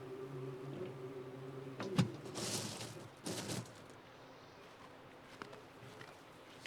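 Battery-electric lawn mower just shut off, a fainter hum lingering for about two seconds, then a sharp click and two short rustling noises.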